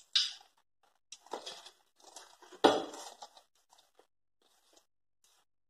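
Hand mixing dry gram flour and bajji flour in a stainless steel bowl: irregular scraping and rustling of the powder against the steel, with one sharper knock on the bowl about two and a half seconds in.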